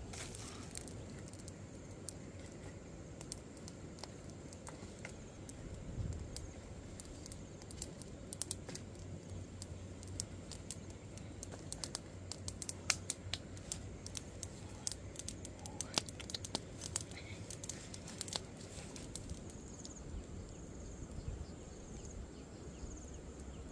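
Small wood fire of sticks crackling, with many scattered sharp pops and snaps, thickest about halfway through.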